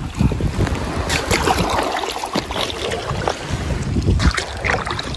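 River water splashing and rushing around a small paddled boat, with wind rumbling on the microphone.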